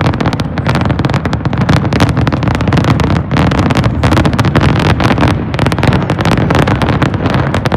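Fireworks display: a dense, continuous barrage of rapid bangs and crackles over a heavy low rumble.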